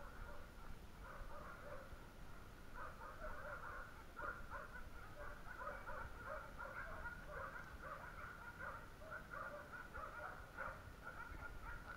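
A faint, continuous chorus of many overlapping short animal calls, croaking or cackling, thick and unbroken throughout, over a low wind rumble.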